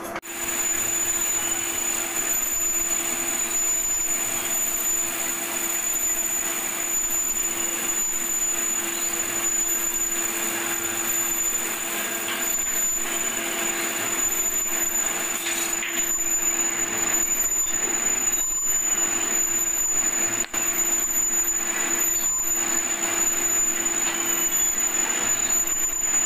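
Workshop machinery running steadily: a continuous mechanical noise with a low hum and a constant high whine.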